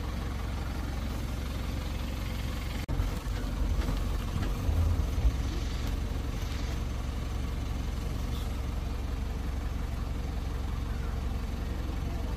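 Safari canter's engine running with a steady low rumble, with a few louder bumps and jolts about three to five seconds in.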